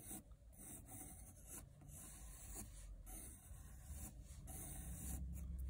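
Col-Erase coloured pencil scratching lightly across mixed-media paper in a series of short strokes, sketching a loose circle. A low hum rises near the end.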